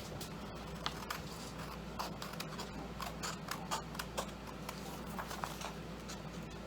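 Scissors cutting through scrapbook paper: a run of short, irregularly spaced snips.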